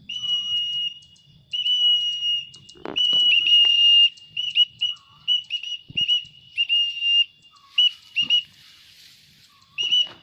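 A string of high whistle notes, all at one steady pitch, some short and some held for about a second, signalling to a trained pet bird as it flies. A few soft knocks come in between.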